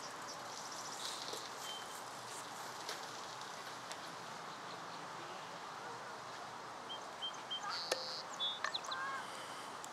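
Steady open-air background noise with a few short, high bird chirps scattered through it, and a single sharp click about eight seconds in.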